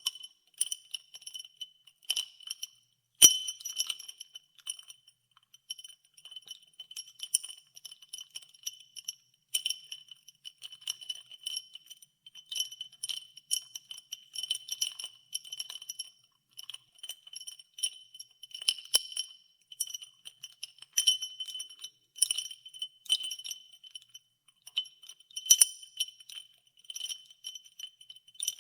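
Ice cubes being stirred in a glass of iced water, clinking continuously and irregularly against the glass, each clink ringing at the same few clear pitches. Harder knocks come about three seconds in, near the middle and a few seconds before the end.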